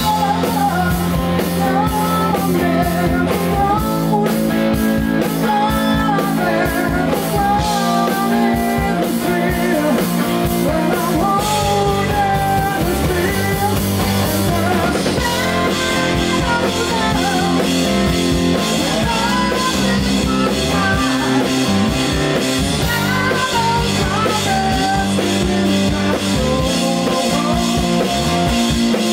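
Live rock trio playing: distorted Telecaster-style electric guitar, electric bass and drum kit keeping a steady beat, with a man singing lead.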